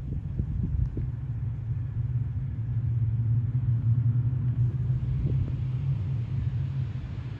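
Low engine rumble of a passing motor vehicle, growing louder to a peak about halfway through and then slowly fading.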